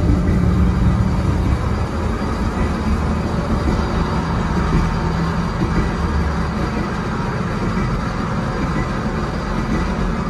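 Steady interior running noise of an LVS-86M2 tram in motion: a continuous rumble of wheels on rails and running gear.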